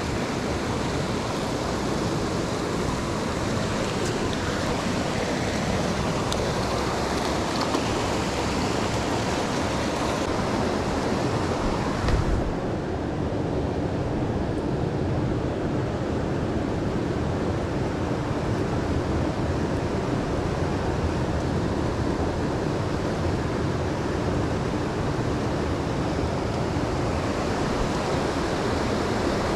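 Steady rush of river water flowing over rocks. About twelve seconds in there is a brief knock, and after it the rush sounds duller, with less hiss.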